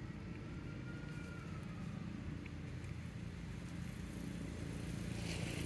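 Steady low engine hum of a motor vehicle running, slowly getting louder toward the end, with a faint high whistle rising and falling in the first couple of seconds.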